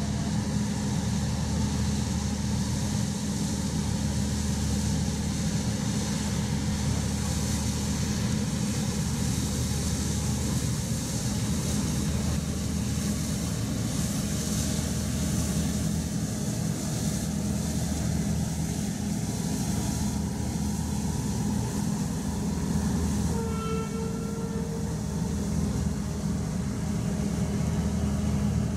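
Steady, constant-pitch low machinery hum of a docked tanker's onboard engines and pumps running. About three quarters of the way through, a short high tone sounds for a second or so.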